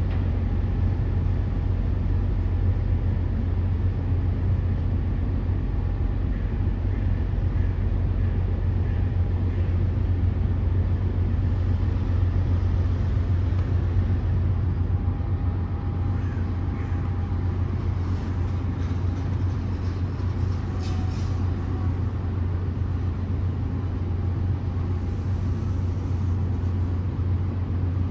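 Heavy engine running steadily, a deep even hum with a faint higher tone above it and a few light clicks just past the middle.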